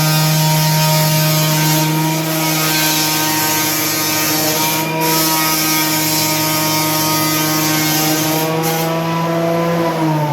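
Ryu 12-inch portable thickness planer running with a steady motor whine and a rushing hiss of the cutter head and fan; about ten seconds in its pitch starts to fall.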